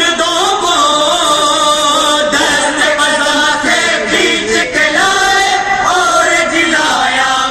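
A group of male voices chanting a naat together in a long, drawn-out melody with wavering, gliding pitch and few breaks.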